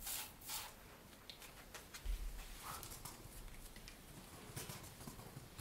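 A trigger spray bottle squirting twice, about half a second apart, near the start, then faint scattered clicks and soft handling sounds.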